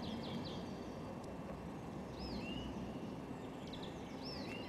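Small birds chirping: a few short high chirps near the start, a couple more about two seconds in and one near the end, over steady low outdoor background noise.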